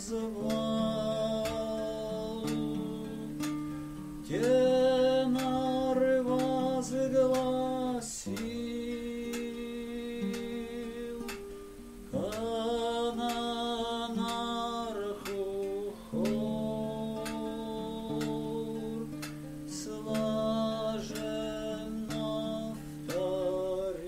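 A man singing a slow song in long held notes, to his own acoustic guitar accompaniment.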